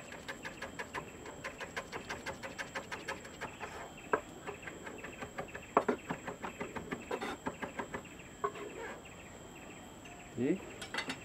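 Chef's knife rapidly chopping kaffir lime leaves very fine on a wooden cutting board, about four to five quick taps a second with a few louder knocks, stopping near the end.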